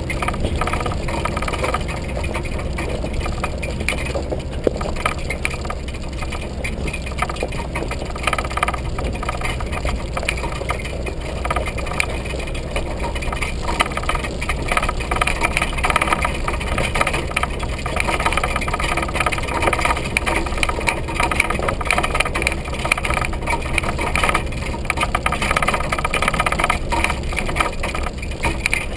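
Subaru Forester driving slowly over a rocky dirt trail: a steady low engine and tyre rumble with constant irregular rattling and knocking, from the camera's shaky roof-basket mount shaking over the bumps.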